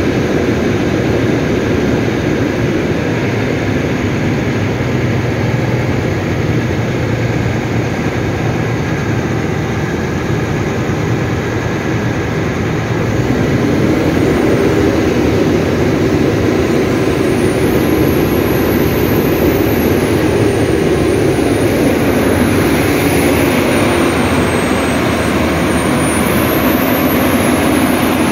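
Rebuilt Cummins QSL 8.9 six-cylinder diesel running a generator set at steady governed speed under a load test. It grows a little louder about halfway through as the electrical load is raised to around half.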